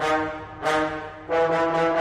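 Brass music: three accented brass chords, about two-thirds of a second apart, each struck sharply and dying away before the next.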